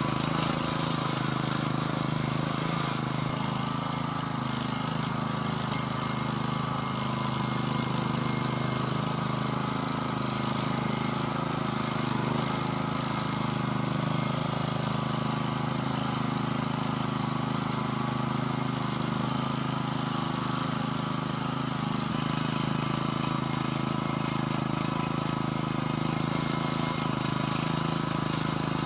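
Vari two-wheel tractor's engine running steadily as it pulls a tine cultivator through the soil of the bed.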